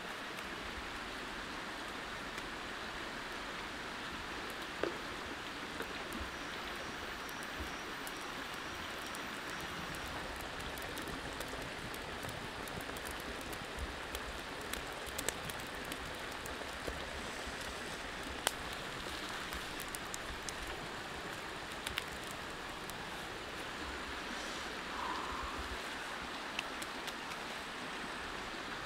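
Steady, even rushing noise, like running water or rain, with scattered faint clicks and ticks.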